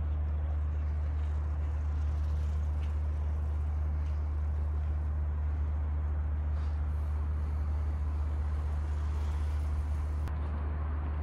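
Steady low rumble of road traffic, with a constant deep hum under a faint hiss.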